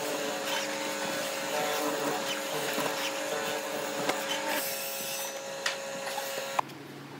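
Benchtop hollow-chisel mortiser running with a steady motor hum while its square chisel is plunged into wood, with scattered sharp knocks from the cutting. The hum stops suddenly near the end.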